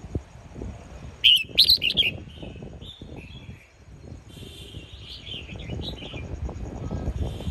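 Red-whiskered bulbul singing: a loud burst of sharp, high notes about a second in, followed by softer warbled phrases.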